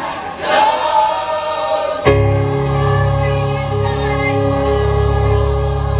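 Choir singing; about two seconds in a full chord comes in and is held steadily over a deep, steady bass.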